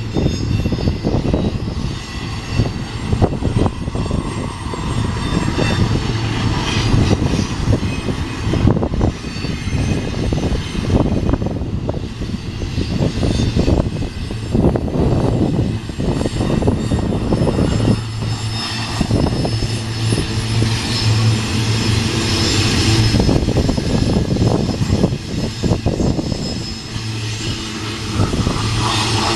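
Loaded double-stack container well cars of a freight train rolling past: a steady low rumble with many short knocks of the wheels on the rails.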